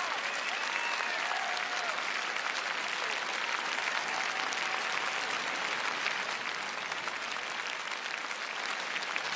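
Large arena audience applauding steadily, a dense unbroken patter of many hands clapping.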